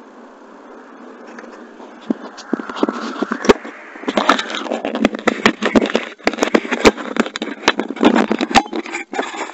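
Handling noise from a Polaroid Cube action camera's own microphone inside its sealed waterproof case: a steady hiss, then from about two seconds in a dense run of knocks, clicks and rubbing as the case is gripped and moved, getting busier about halfway through.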